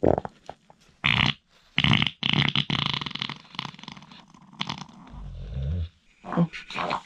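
Harsh, breathy vocal bursts of a man's wheezing laughter, then a low rumbling fart about five seconds in.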